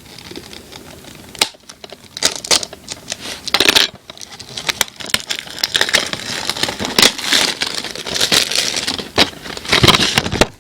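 Plastic shrink-wrap being torn and peeled off a DVD case, crinkling and crackling with scattered sharp clicks, busiest in the second half.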